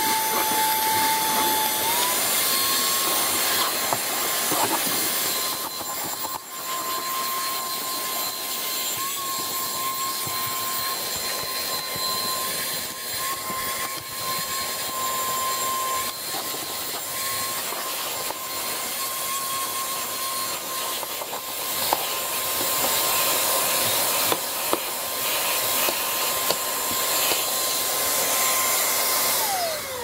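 MOOSOO K17 cordless stick vacuum running with a steady high motor whine and rushing air as its hose nozzle sucks dog fur out of car floor carpet, with small knocks of the nozzle against the carpet and trim. The whine steps up slightly in pitch about two seconds in, and at the very end the motor is switched off and winds down with a falling whine.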